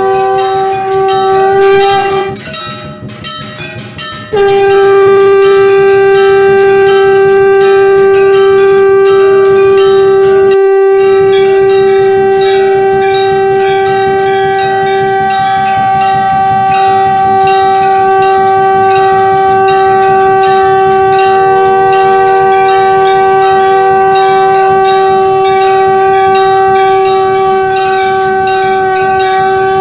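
Shankh (conch shell) blown in long, steady blasts, one held note with a rich set of overtones. The first blast breaks off about two seconds in; after a short pause a new blast starts and is held for more than twenty seconds. Temple bells ring underneath.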